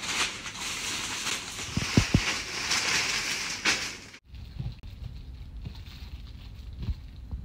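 Plastic bag and cellophane wrappers crinkling and rustling as wrapped sweets are handled, with a couple of soft knocks about two seconds in. The sound cuts off abruptly, leaving a quieter low hum with a few light knocks.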